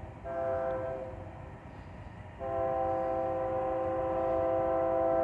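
Freight locomotive's multi-note air horn sounding for a grade crossing, heard from a distance. A short blast comes near the start, then a long blast from about two and a half seconds in: the closing short and long of the standard crossing signal.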